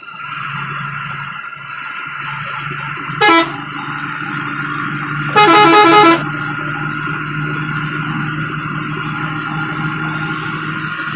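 A bus's horn blows over the steady running of the bus in the cab: a short blast about three seconds in, then a louder, rapidly pulsing blast lasting under a second about five and a half seconds in. A steady whine from the running bus carries on underneath.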